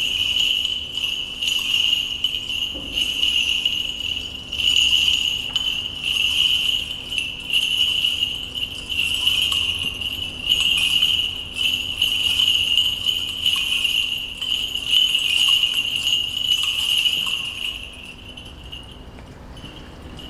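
Small bells on a Greek Orthodox priest's censer jingling as it is swung during the censing, rising with each swing every second or two. The jingling stops near the end.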